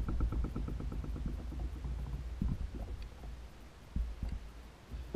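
Handling noise as a smallmouth bass is unhooked by hand in a kayak: a quick run of light ticks fading over the first couple of seconds, then a few soft knocks, over a low rumble of wind on the microphone.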